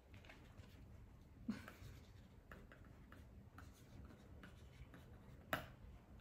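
Faint scratching of a pen writing on a hand-held writing pad, with two short soft knocks, one about a second and a half in and one near the end.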